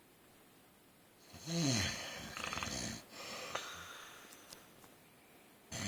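A man snoring in his sleep: after a quiet second, one loud snore that drops in pitch and breaks into a rattle, a weaker breath after it, then another loud, steady snore starting near the end.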